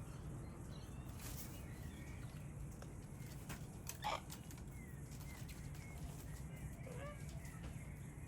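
Outdoor bird ambience: faint, scattered chirps of small birds over a steady low rumble of wind or background noise. A single short, sharp sound stands out about four seconds in.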